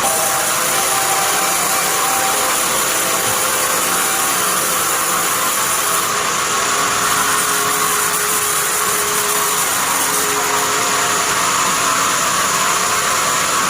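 Sawmill bandsaw machine running, a steady loud noise that stays even throughout, with faint tones drifting slightly in pitch underneath.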